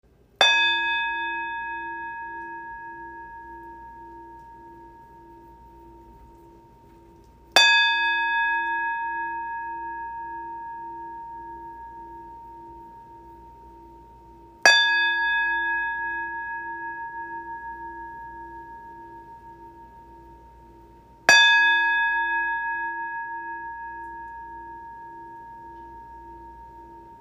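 Hammered brass singing bowl, resting on an open palm, struck four times about seven seconds apart. Each strike rings out in a long, slowly fading tone, with a lower hum beneath it that throbs about twice a second.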